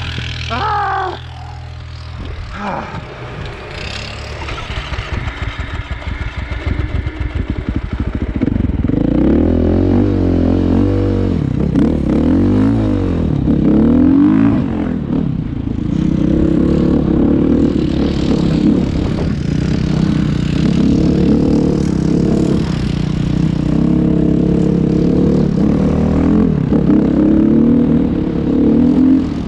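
An engine running unevenly at low speed with a quick pulsing beat, then picking up about eight seconds in and running louder, its speed rising and falling several times before settling to a steadier run.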